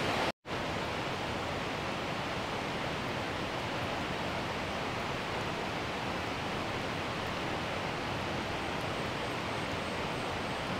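Steady rushing outdoor background noise, even and without distinct events, broken by a split-second dropout about half a second in.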